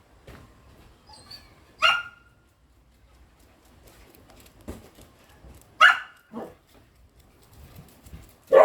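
A dog barking: about five short, separate barks spaced a second or two apart, the loudest near the end.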